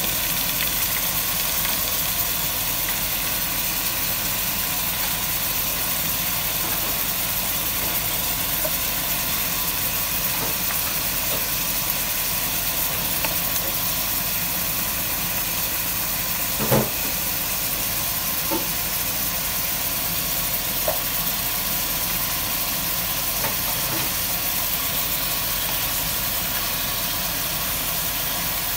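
Pork trotters sautéing with garlic and onions in a pot: a steady sizzling hiss, with a few small pops and one sharper click about 17 seconds in.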